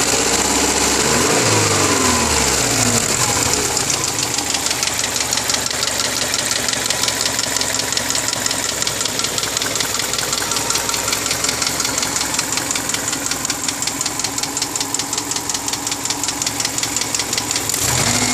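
2002 Subaru Forester's flat-four engine running with a fast, even knocking. The owner asks whether it is piston slap. A brief rise and fall in pitch comes in the first few seconds.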